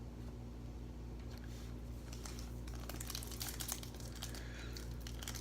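Trading cards and their pack wrapper being handled, with faint crinkling and light clicks that grow busier about halfway through, over a steady low hum.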